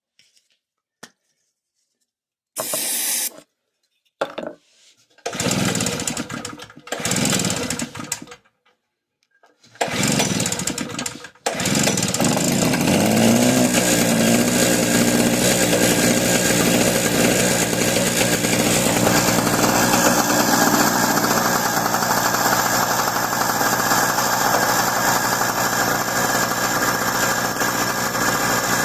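Harbor Freight Tailgater generator's 63cc two-stroke engine being pull-started on a new carburetor and starting fluid. Several short pulls turn it over and sputter, then about eleven seconds in it catches and runs on choke, its pitch rising as it comes up to speed and then holding steady.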